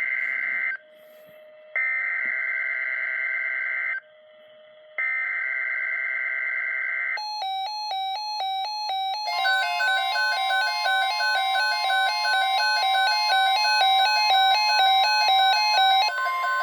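Emergency Alert System tones on NOAA Weather Radio. Screeching two-tone SAME digital header bursts end about a second in, then two more come after short gaps, encoding a severe thunderstorm watch. Then rapid alternating alert beeps start, and about two seconds later the steady 1050 Hz warning alarm tone joins them.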